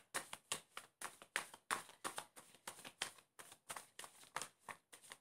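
A deck of cards being shuffled by hand: a quick, even run of light taps and slaps, about five a second, that stops near the end.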